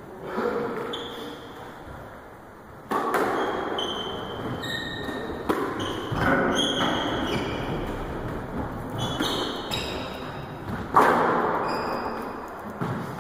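Squash rally on a wooden court: the ball cracking off racquets and walls in sharp hits, loudest about three and eleven seconds in, with court shoes squeaking on the floorboards.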